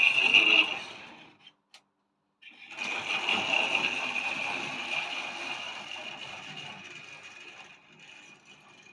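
Tri-ang model railway locomotive running on the track, its small electric motor whining over the rattle of wheels on rail. The sound cuts out about a second and a half in, with a single click, resumes about a second later, and then slowly fades away.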